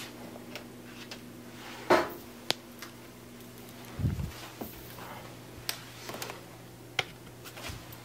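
A few sharp clicks and a couple of dull knocks over a steady low hum.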